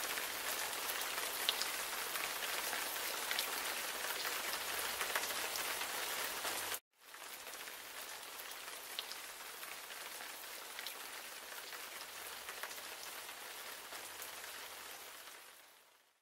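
Oil sizzling in a stainless steel pot as chopped garlic and red onion sauté, with scattered small pops. After a short break about seven seconds in, a quieter sizzle under whole tomatoes, fading out near the end.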